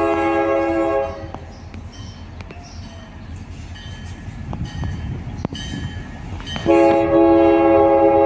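Air horn of an approaching EMD Geep diesel locomotive sounding a chord of several tones: one blast about a second long at the start, then a long blast starting near the end. Between the blasts, the locomotive's engine and wheels rumble, growing louder as it comes closer.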